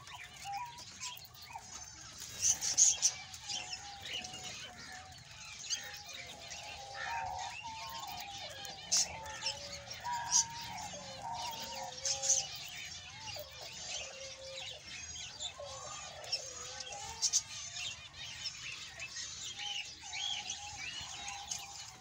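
A flock of budgerigars chirping and chattering, with many quick high chirps throughout and a lower wavering tone underneath through the middle.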